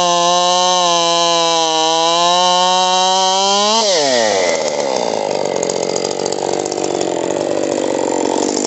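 Husqvarna 545 two-stroke chainsaw, a first-generation saw swapped to a Mark II cylinder, piston and crank, held at full throttle with a steady high note. About four seconds in the pitch drops sharply as the chain bites into wood, and the saw keeps cutting under load at lower revs with a rougher sound.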